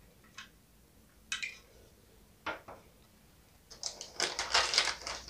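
A few light clicks of small plastic toy pieces being handled. Then, from about four seconds in, a plastic packaging bag crinkling and rustling.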